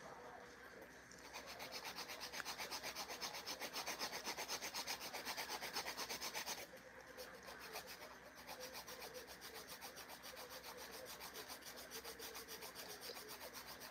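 Nail file stroked rapidly back and forth across acrylic nails, shaping them, at about four to five scraping strokes a second. The strokes get quieter about six and a half seconds in.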